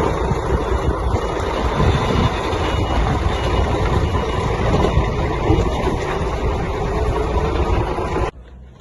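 Vehicle engine and road noise, a steady rumble heard while moving. It cuts off suddenly near the end.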